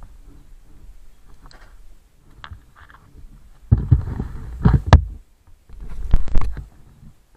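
Wind buffeting the microphone on a moving motorbike: two loud bursts of low rumble with sharp crackles, about four and six seconds in, over faint road noise.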